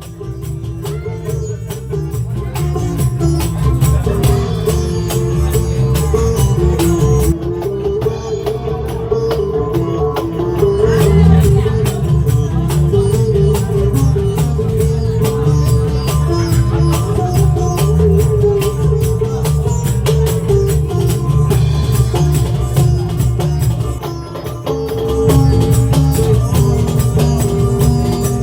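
A Nepali band playing live in concert, with dense, fast percussion under a held melody. The music dips briefly about 24 seconds in and then comes back up.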